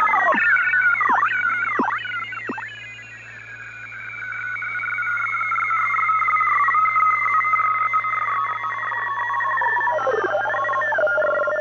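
Synthesized echo-wave sound effect: layered electronic tones swoop sharply down and back up several times in the first few seconds, then settle into a held, slowly falling tone that fades and swells back, wobbling again near the end before cutting off.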